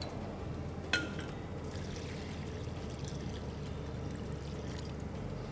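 Water poured from a glass jug into a pan of rice, starting a little under two seconds in. A sharp clink comes about a second in.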